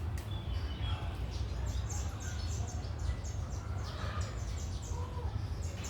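Many small birds chirping in quick short notes, over a steady low rumble.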